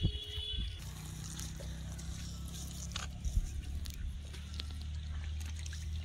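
A low, steady motor hum that starts about a second in, with faint sloshing of water and a few light clicks.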